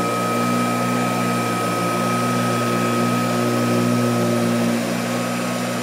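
1937 Premier Deluxe upright vacuum cleaner running on a rug, its ball-bearing General Electric motor and fully tufted brushroll sweeping and beating the pile. The sound is a steady motor hum with a thin high whine above it.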